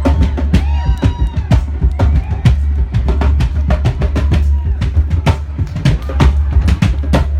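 Live band music: a drum kit keeps a steady beat over a sustained bass line. Melodic lines glide up and down in pitch about a second in.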